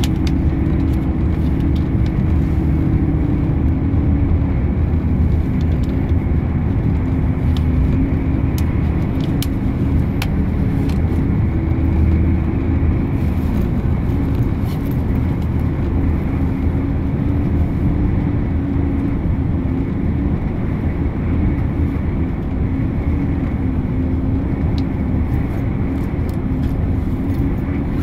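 Highway bus cruising at speed, heard inside the cabin: a steady low drone of engine and road noise with a humming tone that wavers slightly in pitch.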